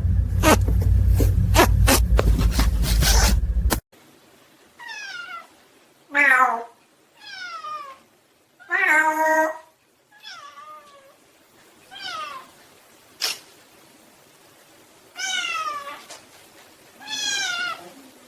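A cat meowing repeatedly, about eight separate meows one to two seconds apart, many falling in pitch. Before them, a loud low rumble with sharp clicks cuts off suddenly about four seconds in.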